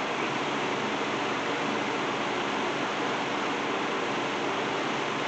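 Steady rushing hiss with a faint low hum, unbroken throughout: constant room background noise of the kind a running fan or air conditioner makes.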